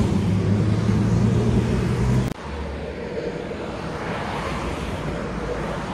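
City street traffic: a steady low engine hum, then an abrupt cut to cars driving past close by, tyre noise swelling as one passes about halfway through.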